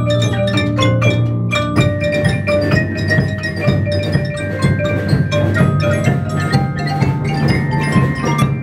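Student percussion ensemble playing on marimbas and other mallet percussion: quick, dense mallet strokes over held low marimba notes.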